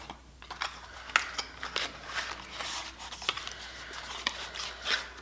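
Cosmetic packaging being handled and opened by hand: a string of irregular small clicks and taps mixed with short rustles of cardboard and plastic.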